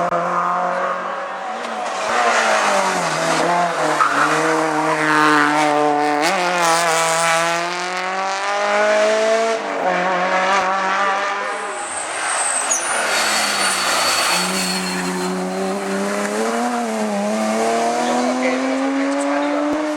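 Race car engine at full throttle on a hillclimb, its pitch climbing and dropping back with each gear change. Around the middle it eases off and there is a brief high tyre squeal, then it pulls hard again.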